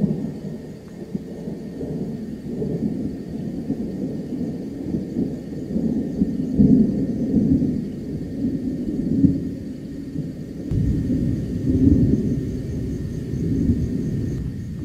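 Thunder rumbling continuously, swelling and fading in rolls, with louder swells about six, nine and twelve seconds in.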